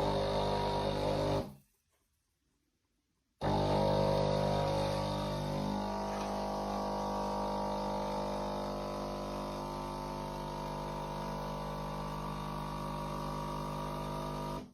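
Pump of a fully automatic espresso machine humming steadily. It stops about a second and a half in, starts again about two seconds later, and cuts off near the end.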